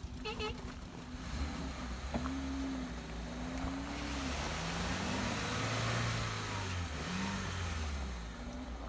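Off-road vehicle's engine revving up and down several times under load while a stuck car is pulled free, with a swelling rush of noise in the middle.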